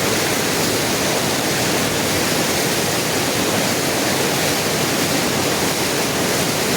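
Steady loud rushing of a river in flood, its high, fast water running close under a bridge.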